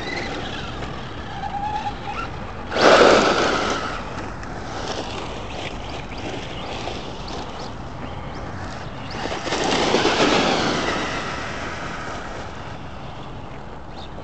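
Electric RC short-course trucks racing flat out on asphalt: motors and drivetrains whining over tyre noise. The sound rises loudly twice, about three seconds in and again near ten seconds.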